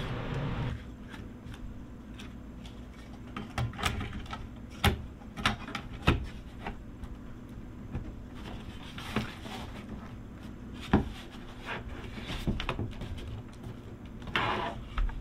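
Top cover of a Lenovo M720Q tiny PC case being slid on and pressed down by hand: scattered clicks and knocks of the cover against the chassis, with a short scrape near the end. The lid is not seating fully over the added fan shroud.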